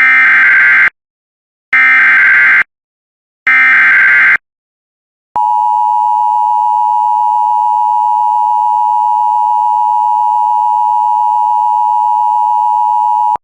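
Emergency Alert System SAME header: three short bursts of warbling data tones, each under a second, then the EAS attention signal, a steady piercing tone held for about eight seconds that cuts off abruptly. Together they open a severe thunderstorm warning.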